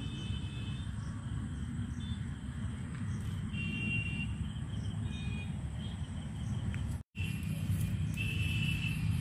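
Steady low outdoor rumble with faint, high insect chirps now and then; the sound cuts out for an instant about seven seconds in.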